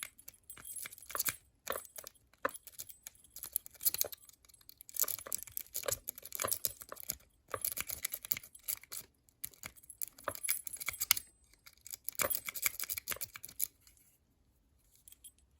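A metal rake scraping and clicking over the pin stack inside a five-pin Master Lock padlock's keyway, in quick irregular bursts while the lock is being raked open. The raking stops about fourteen seconds in.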